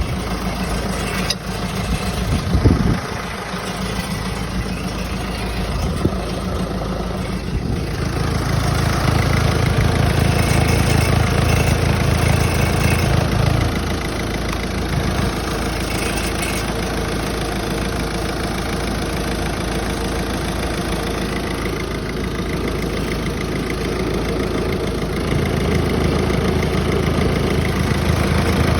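Peugeot 508 engine idling with an intermittent metallic rattle, including a sharp knock about three seconds in. The rattle comes from the metal heat-shield plate over the gearbox controls, which was not latched back in place after a clutch replacement and has come loose. The engine's rumble grows heavier twice, around a third of the way in and again near the end.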